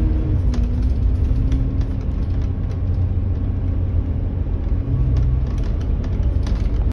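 Inside a Volvo B7TL double-decker bus on the move: the six-cylinder diesel runs with a steady low rumble, and its pitch drops slightly about half a second in. Short rattles and clicks come from the bodywork now and then over the bumpy road.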